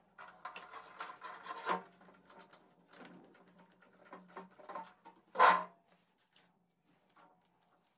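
Rustling and scraping as a gloved hand handles a rubber gas hose against the rough concrete floor of the oven cabinet, in short irregular bouts, with one louder brief scrape about five and a half seconds in.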